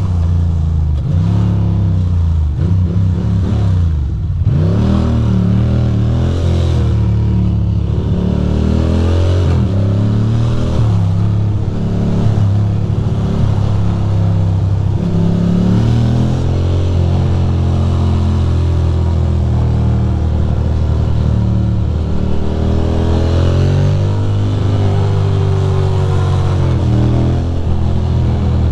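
Motorcycle engine heard from the rider's seat, repeatedly accelerating and easing off, its pitch rising and dropping with each throttle change, over a steady rush of wind and road noise.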